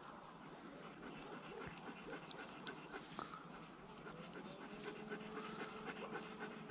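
A dog panting, faint, in a quick run of short breaths.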